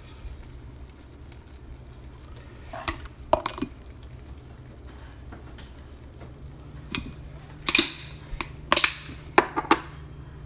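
A utensil clinking and scraping against a pot or dish in short bursts: a few knocks about three seconds in, then a run of sharper clinks near the end, over a steady low hum.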